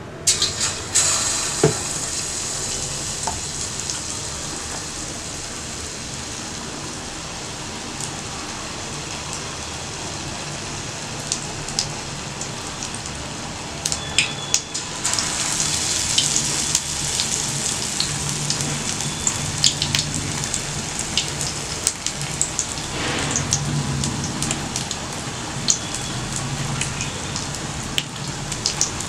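Batter-coated baby corn pieces deep-frying in hot oil: a steady hissing sizzle with scattered crackles. It surges as a piece drops into the oil just after the start and again about halfway through.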